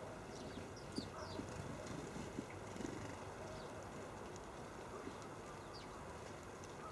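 Small garden birds at a feeder giving short high chirps, with a few light knocks and taps scattered through.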